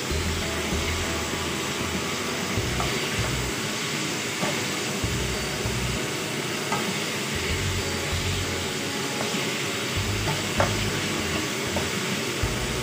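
Strips of meat sizzling in a hot wok as they are stir-fried, with a nylon spatula scraping through the pan and tapping its side a few times.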